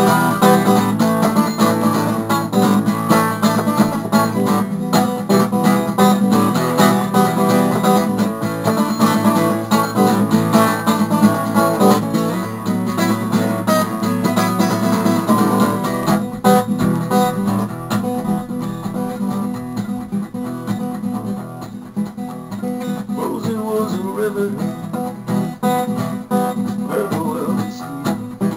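Instrumental music: acoustic guitar picked and strummed in a country-folk style, a little softer in the second half.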